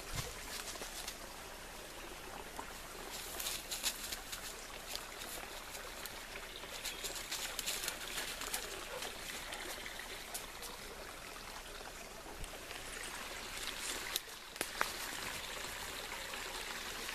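A steady trickling hiss with scattered crackles and snaps of dry leaf litter and twigs underfoot and brush being pushed through. The loudest crackles come around four seconds and fifteen seconds in.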